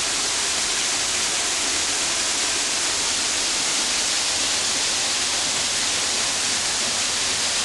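Waterfall rushing steadily, an even, unbroken hiss of falling water heavy in the high end.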